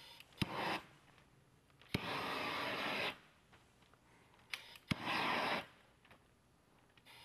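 Propane shrink-wrap heat tool fired in three blasts while the film is heat-sealed along the base: a short blast, a longer one of about a second, then another short one, each starting with a sharp click.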